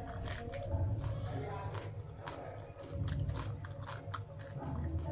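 A person chewing food close to the microphone: a run of wet, irregular mouth clicks and smacks.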